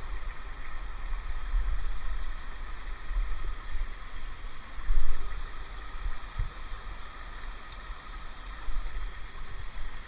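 Steady rush of a waterfall and stream running over rock, under a low rumble of camera handling, with a louder bump about five seconds in.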